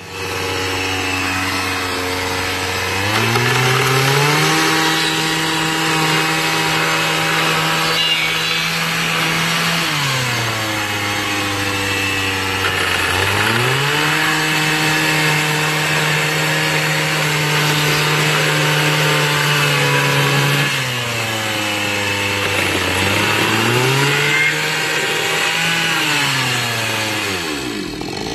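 Petrol two-stroke chainsaw cutting into a wooden barrel. It idles at first, then goes to high revs three times and holds there for several seconds each time, dropping back to idle in between.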